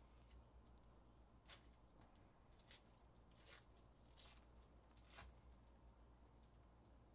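Faint crinkling and tearing of a foil trading-card pack wrapper being opened by hand: about five short rustles, one roughly every second.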